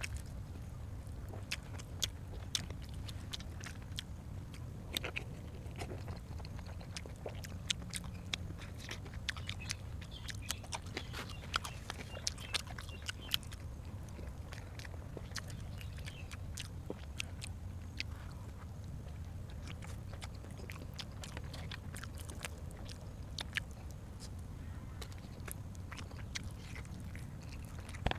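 A person chewing and biting food close to the microphone: many short, sharp, irregular clicks, over a steady low hum.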